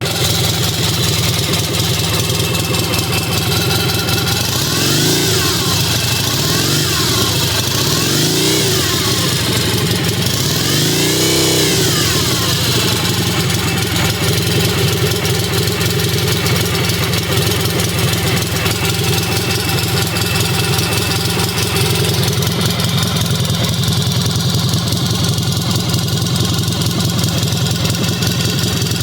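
1983 Yamaha XS650 parallel-twin engine running, revved up and back down three times in the first twelve seconds or so, then idling steadily, with the whirring noise that the owner is trying to track down.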